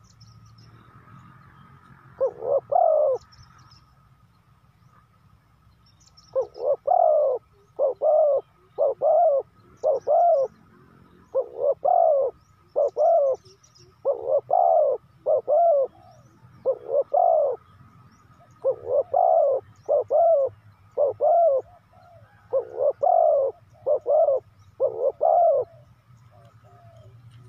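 Spotted dove cooing: a pair of short coos, a pause of a few seconds, then a long run of repeated coos at about one a second, some in quick pairs, until shortly before the end. A faint steady high tone runs underneath.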